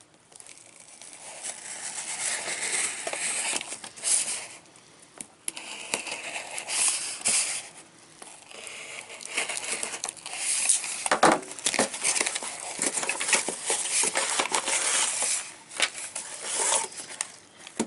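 A folding knife slitting the tape on a cardboard shipping box, then the box and its packaging being torn open and handled: irregular scraping, tearing and crinkling, with a few sharp knocks.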